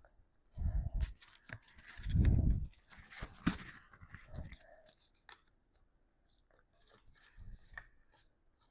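Pokémon card pack packaging being handled and torn open: crackling, tearing and rustling, with two heavier thumps about one and two and a half seconds in.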